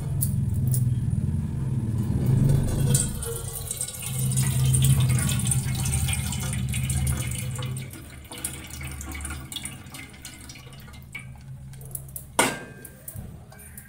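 Rinsing water draining off soaked poha (flattened rice) as a pot is tipped, the water pouring past a plate held over the pot's mouth into a steel bowl. A steady low hum runs under it and drops away about eight seconds in, and there is a single sharp knock near the end.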